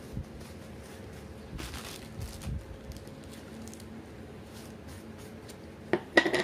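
Close-up eating sounds from mochi: soft chewing and paper rustling. About six seconds in comes a quick cluster of sharp clicks and crinkles, the loudest moment.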